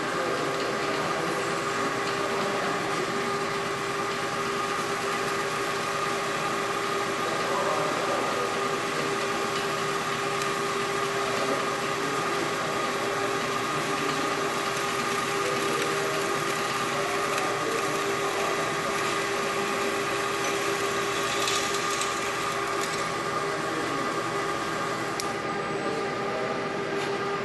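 Vertical milling machine running with a drill bit cutting into a metal tube, a steady whine over a hiss of cutting. The hole is being re-drilled where a tap broke off.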